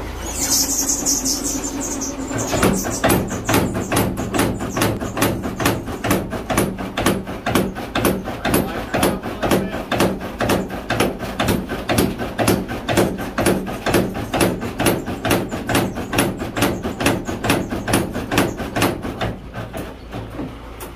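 A 100-year-old Bradley helve hammer with a 200 lb ram pounding a hot axe blank on its anvil in a fast, even rhythm of about three heavy blows a second. The blows start about two and a half seconds in and stop shortly before the end, over a steady low hum.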